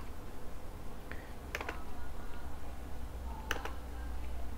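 A few sparse, sharp clicks from a computer mouse and keyboard, some coming in quick pairs, over a steady low hum.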